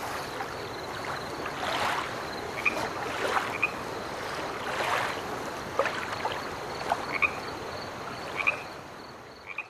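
Frogs croaking over a steady rushing noise like water, with short high chirps every second or so; it all fades out near the end.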